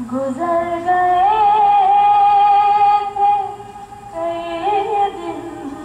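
A woman singing a slow, melismatic melody in two long phrases, holding wavering notes, with a short break between them about three and a half seconds in.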